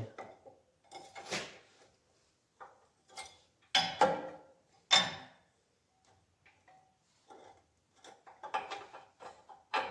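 Irregular knocks and clunks of metal parts being handled during work on the spreader's bearing, about half a dozen separate strikes. The loudest come about four and five seconds in.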